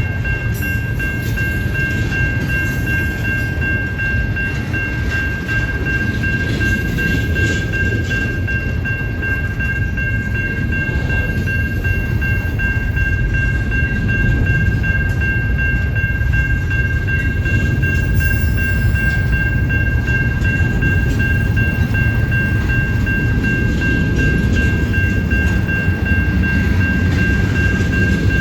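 Intermodal freight train cars rolling past, a steady heavy rumble of wheels on rail. A steady high-pitched whine runs under it throughout.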